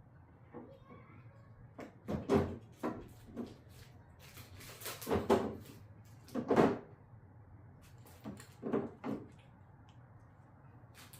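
A series of irregular knocks and clunks, about half a dozen, the loudest in the middle: a tail light housing being handled and pressed against the car body while the installer tries to seat it, which will not sit flush.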